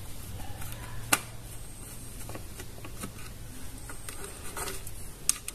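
Screwdriver working the screws out of a Tenda F3 router's plastic case, with light plastic handling and ticking, and a sharp click about a second in and another near the end.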